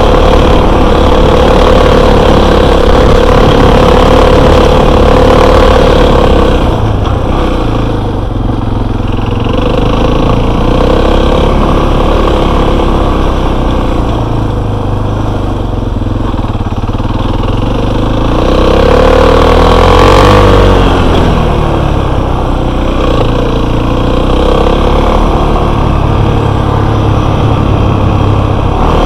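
Enduro motorcycle engine running loudly under way, its revs held for the first several seconds, then easing off, and rising and falling again about twenty seconds in.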